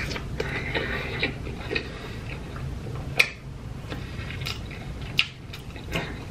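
Close-miked chewing of a mouthful of chili cheese fries, with wet mouth clicks and smacks every second or so. The sharpest come about three and five seconds in.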